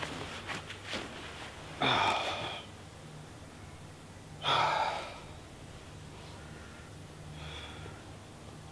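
A man lying back in a hammock letting out two long, breathy sighs about two and a half seconds apart, with a fainter breath near the end and a few light rustles of the hammock early on.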